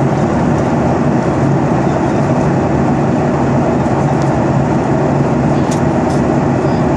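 Steady in-flight cabin noise of an airliner: the constant drone of the engines and rushing airflow heard inside the cabin, with a low hum running through it.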